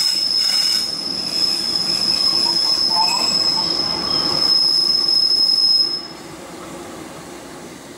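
Train braking into a station, with one steady high squeal over the rumble of the wheels on the rails. The squeal cuts off suddenly about six seconds in, leaving a quieter rumble as the train creeps on.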